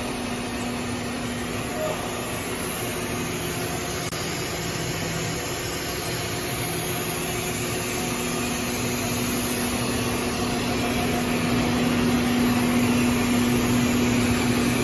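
JDDC-50-800 plastic film blowing machine running: a steady mechanical hum under a rush of air, with a low hum tone that grows louder in the second half.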